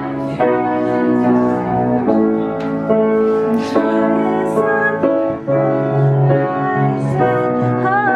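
Background music with piano, steady sustained notes changing every half second or so.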